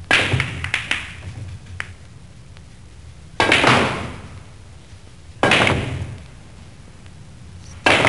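Four sharp sound-effect hits, each starting suddenly and fading away over about a second, spaced two to three seconds apart, with a few small clicks after the first.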